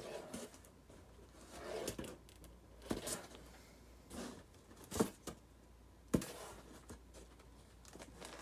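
Comic books being flipped through and lifted in a cardboard box: paper rustling with a few sharp taps, the loudest about five and six seconds in.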